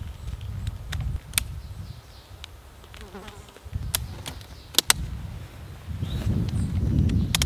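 Tent pole clips snapping onto the poles of a military dome tent as it is pitched: a handful of sharp clicks, two close together about five seconds in. Under them is a low wind rumble on the microphone that grows louder near the end.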